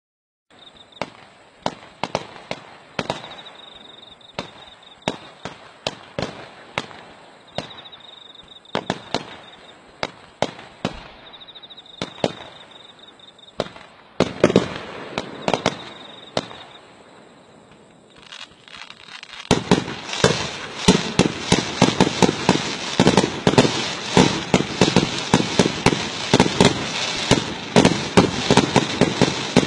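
Fireworks display: aerial shells going off with sharp bangs, one or two a second, that about two-thirds through turn into a dense, rapid barrage of bangs and crackling.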